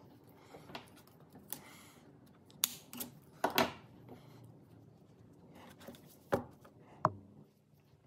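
Hand-sewing handling noise from a cotton-rope wall hanging: rope and cord rubbing and rustling, with a scattering of sharp taps and clicks. The loudest clicks come around three and a half seconds in.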